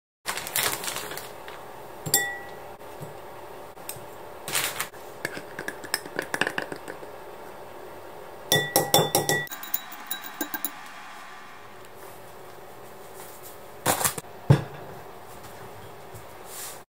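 Kitchen dishes and metal utensils clinking and clanking, with scattered sharp knocks. A few strokes leave a brief metallic ring, about two seconds in and in a quick cluster about halfway through, and the loudest knock comes late on.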